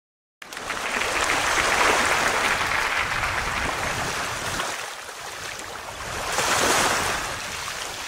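A rushing, hissing noise that starts abruptly and swells twice, with a dip between the swells.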